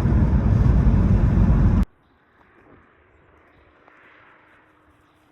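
Loud, steady rumbling noise that cuts off suddenly about two seconds in, leaving only a faint hiss and a low hum.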